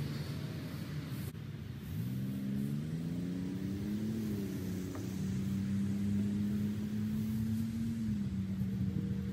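An engine running with a steady hum. Its pitch climbs between about two and four seconds in, holds level, then dips slightly near the end.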